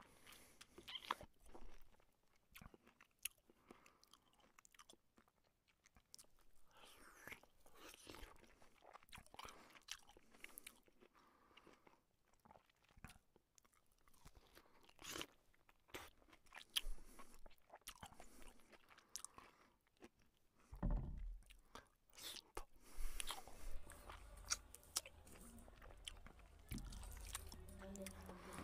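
Close-up eating sounds: a person chewing and crunching fried fish and rice eaten by hand, with soft wet smacks and short clicks. About two-thirds of the way through, a low hum comes in underneath.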